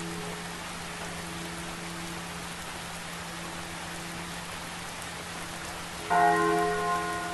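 Steady rain with the low, pulsing hum of a large church bell hanging underneath. About six seconds in, the bell is struck once and rings out.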